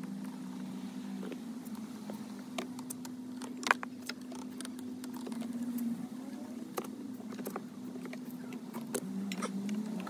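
Scattered small clicks and taps of plastic wiring connectors and harness wires being handled under a car dashboard, the sharpest about a third of the way in, over a steady low hum.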